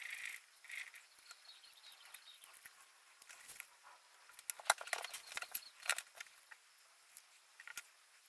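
Small workbench handling sounds: a paintbrush rubbing on paper right at the start, then a run of light clicks and taps about four and a half to six seconds in, as the wooden lure is picked up and brushed with a clear coat.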